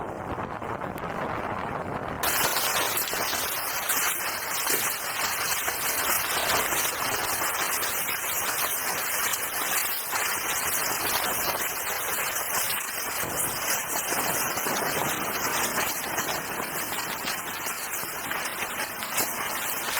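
Steady hiss and patter with no clear tone, which turns louder and brighter about two seconds in.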